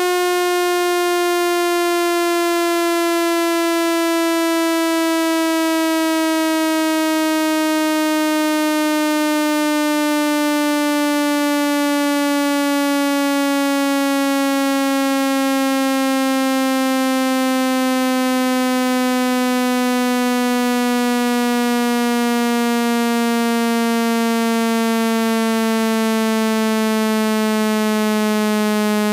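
Speaker-cleaning tone for ejecting water and dust from a phone speaker: a loud, buzzy electronic tone with many overtones, its pitch falling slowly and steadily.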